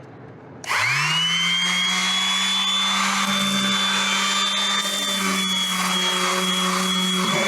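Electric power sander switched on about a second in, quickly spinning up to speed and then running steadily with a high whine. It is sanding down polyester fairing compound over filled holes in a fiberglass bulkhead, with 60-grit paper.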